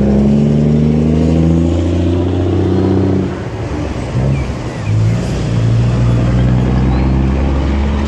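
Large tour coach's diesel engine revving as it pulls away. Its pitch climbs for about three seconds, falls back, then holds steady.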